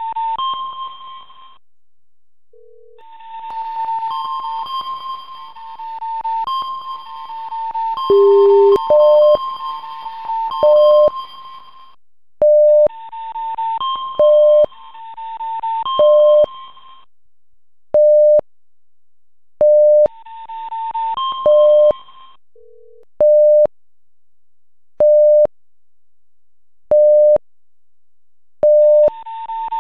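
Electronic alert tones from a seismic monitor sonifying seismic waves arriving at its stations. Groups of alternating two-note tones sound in bursts, and from about nine seconds in a short beep repeats about every second and a half to two seconds, with a few brief lower tones.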